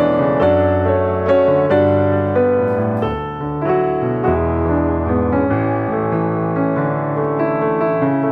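Background piano music: a gentle melody over sustained bass chords that change every second or two.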